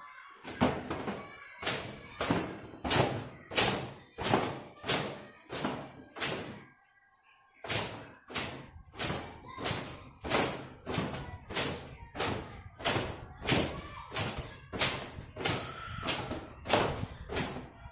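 Long wet hair being beaten with a towel to dry it: a steady run of wet thwacks, about three every two seconds, with a short pause about seven seconds in.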